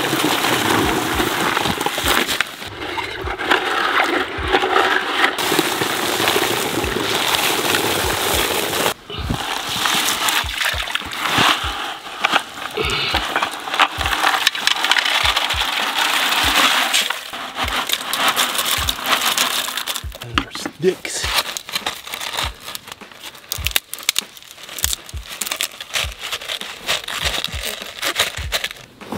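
Background music track.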